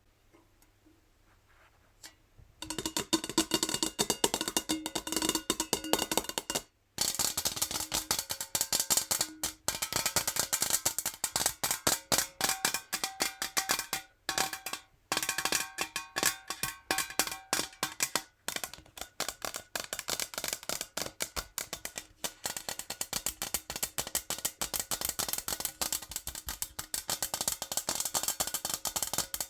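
Natural fingernails tapping rapidly on a metal jar: a dense run of quick clicks with a faint metallic ring. It starts about two and a half seconds in, after a near-silent pause, and breaks off briefly a few times.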